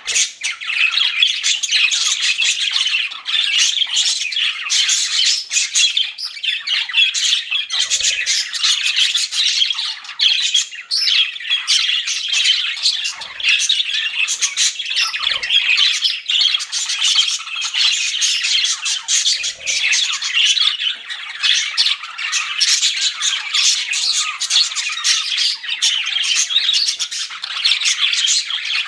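A flock of budgerigars chattering and chirping nonstop, a dense overlapping warble of quick high chirps and squawks.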